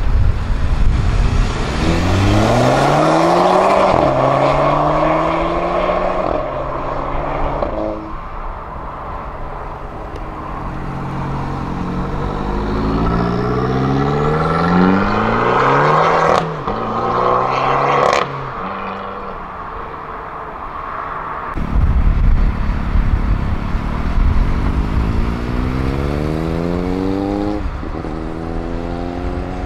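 Tuned cars accelerating hard one after another, each engine revving up in pitch and dropping back at the gear changes. Two sharp cracks come around the middle.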